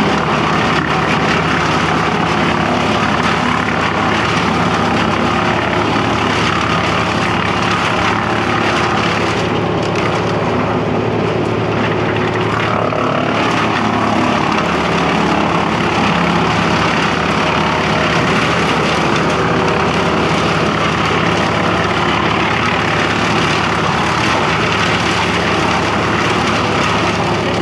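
Towed brush chipper running steadily at working speed while branches are dragged to it and fed through to be chipped.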